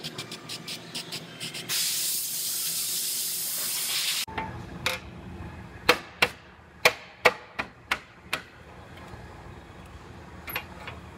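A welder running a weld along the sectioned steel frame rail seam: a steady loud hiss of about two and a half seconds that cuts off abruptly. Later, a run of about eight sharp knocks on metal.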